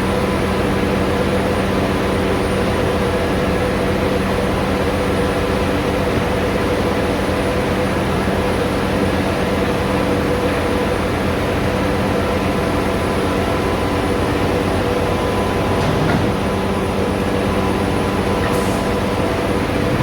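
Aluminium ingot casting machine running: a loud, steady mechanical drone with a constant hum.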